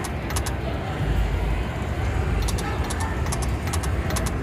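Casino floor background noise, a steady low rumble, with a Konami video slot machine spinning: a run of short, high ticks between about two and a half and four seconds in as the reels land.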